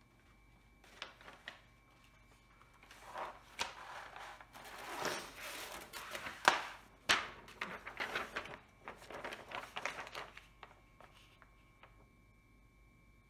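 Rustling and crinkling of a diamond painting canvas's protective cover paper and plastic release film as it is handled and pulled up from the adhesive, with a few sharp crackles near the middle. It starts about a second in and dies away about ten seconds in.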